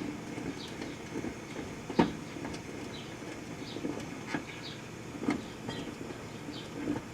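Proctor-Silex microwave oven running with a stick of sugarcane inside: a steady hum and rattle, with a few sharp clicks, the loudest about two seconds in. Short high chirps repeat faintly over it.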